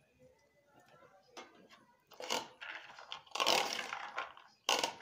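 Chopped sprouted-chickpea and vegetable salad being mixed by hand in a plastic bowl: a few faint clicks, then from about two seconds in, loud rustling, scraping strokes of the food against the bowl.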